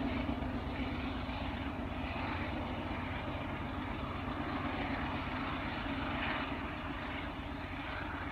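Distant EMD SD70ACe diesel-electric locomotive, with its 16-cylinder two-stroke 710 engine, leading an intermodal train, heard as a steady engine drone and rumble as it approaches.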